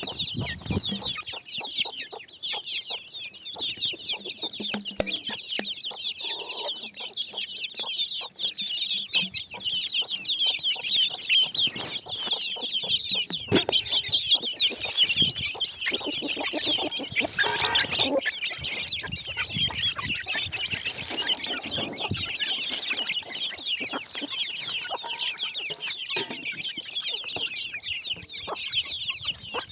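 A flock of chickens clucking, over a dense, unbroken high chirping that runs throughout.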